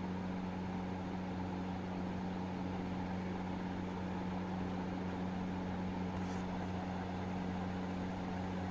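Steady low electric hum of a running motor, such as a fan, holding one pitch without change.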